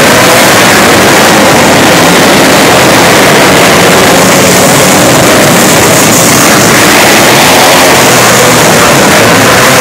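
Engines of several small winged sprint-style dirt-track race cars running together, a loud, steady, blurred engine noise that overloads the recording.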